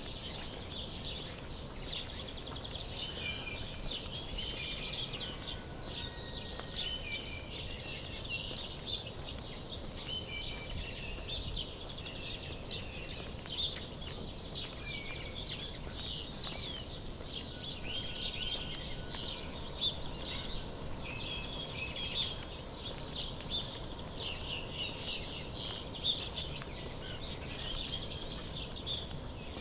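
Several small songbirds chirping and trilling without pause, many short calls overlapping, over a low, even background rumble, with a few brief knocks.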